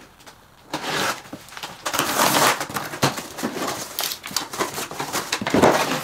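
Cardboard box and its packaging being opened by hand: irregular rustling, scraping and crinkling that starts about a second in.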